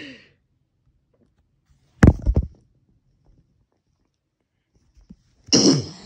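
A person holding their breath gives one sudden, loud hiccup about two seconds in, then near the end lets the breath out in a loud gasp.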